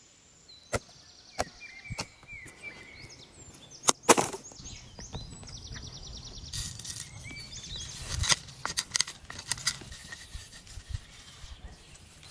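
A few sharp wooden knocks and snaps, the loudest about four seconds in. Then, from about halfway, a small wood fire crackles with scattered pops.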